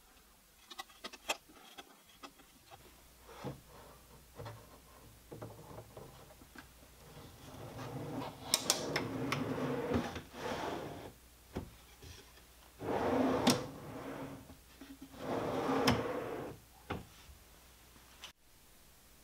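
A plywood drawer on metal drawer slides being pulled open and pushed shut three times. Each run is a rolling rumble with sharp knocks as the drawer stops or closes. A few light clicks come in the first couple of seconds.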